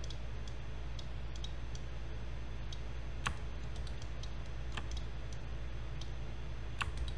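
Computer mouse clicks and keyboard key presses, a dozen or so short irregular clicks, the loudest about three seconds in and near the end, over a steady low hum.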